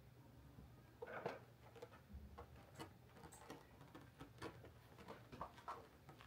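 Faint scratching and light clicking of a kitten's claws on a felt cat bed, a string of short scattered scratches with the loudest about a second in, over a low steady hum.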